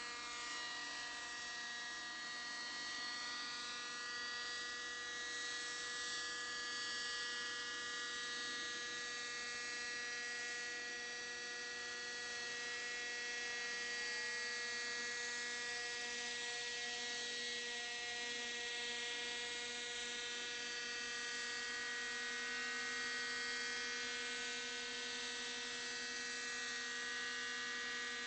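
Thunder Tiger Raptor 30 nitro RC helicopter hovering: its small two-stroke glow engine and rotors give a steady high-pitched whine, with small shifts in pitch as the pilot holds it in a low hover.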